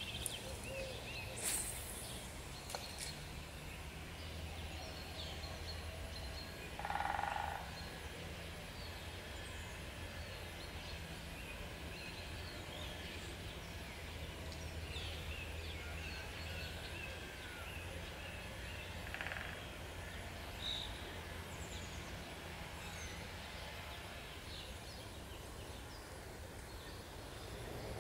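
Faint, steady stream ambience: flowing water with scattered small bird chirps, and one louder bird call lasting about a second, about seven seconds in.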